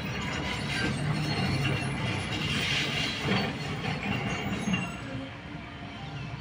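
Cat tracked excavator running as it moves, with the mechanical clatter of its tracks and machinery; the din drops off about five seconds in.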